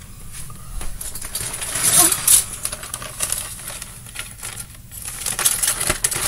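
Small hard objects clicking and clattering as they are handled and put away, with short rustles of plastic or packaging.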